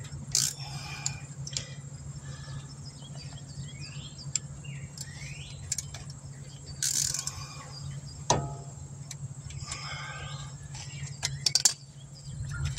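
Brake caliper wind-back tool turning a rear caliper piston back into its bore, giving intermittent squeaks and sharp clicks as it is turned and pushed. A steady low hum runs underneath.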